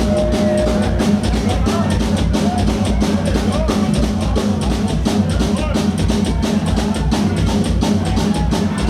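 Punk band playing live, driven by a fast, steady drum beat with the bass drum hitting about five to six times a second.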